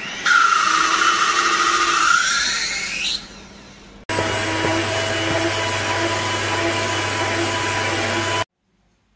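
Electric hand mixer running, its beaters whipping cream; the motor whine sags and then rises sharply before dropping away about three seconds in. About four seconds in, a hand mixer beating batter starts abruptly as a steady motor hum with a faint regular beat, and cuts off suddenly near the end.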